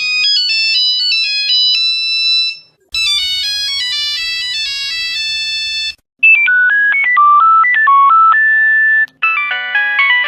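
Old Nokia mobile phone ringtones: four short electronic note melodies played one after another. Each is cut off after about three seconds, with a brief silence before the next starts.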